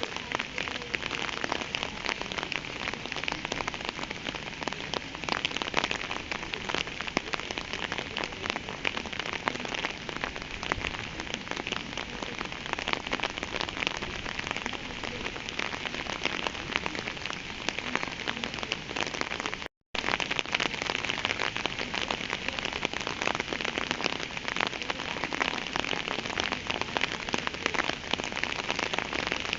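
Steady rain falling, a dense even patter of drops. It cuts out completely for a split second about two-thirds of the way through, then carries on unchanged.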